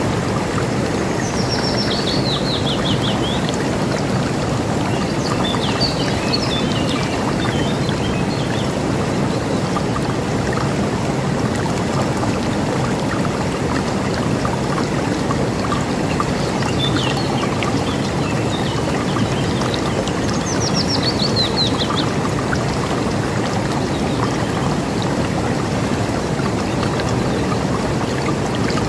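River water rushing steadily, with birds singing over it: a fast trill that falls in pitch, heard about a second in and again about twenty seconds in, and scattered short chirps in between.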